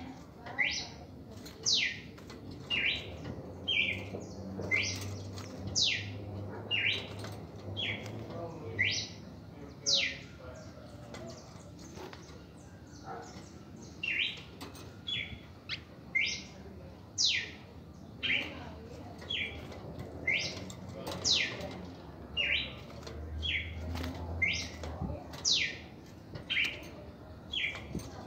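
Red-crested cardinals calling in a cage: a steady run of sharp, high notes that sweep steeply downward, about one or two a second. Wing flutter as a bird flies between perch and cage wall.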